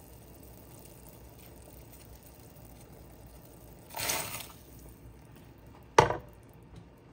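Diced potatoes tipped from a paper plate splash into a stainless steel pot of hot liquid, a brief rush lasting about half a second. About two seconds later comes a single sharp knock, the loudest sound.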